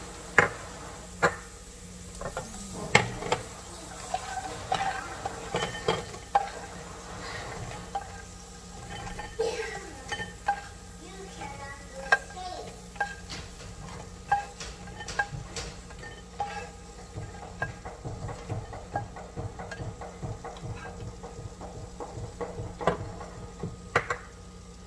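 A spatula scraping and knocking in a nonstick frying pan as fried peanuts are scooped out into a glass bowl, with irregular sharp clicks of peanuts and spatula against pan and bowl.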